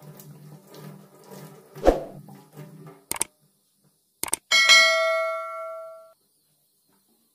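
Subscribe-button animation sound effect: two quick mouse clicks, then a bell ding that rings out and fades over about a second and a half. Before it there is low background noise and one loud thump about two seconds in.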